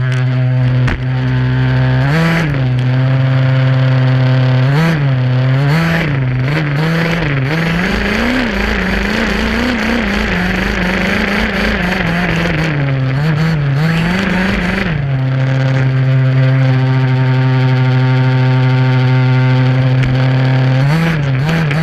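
HPI Baja SS gas RC buggy's small two-stroke engine, heard close from the car itself. It runs at a steady pitch, then is throttled up and down repeatedly, holding a higher pitch for a few seconds in the middle, before settling steady and blipping again near the end.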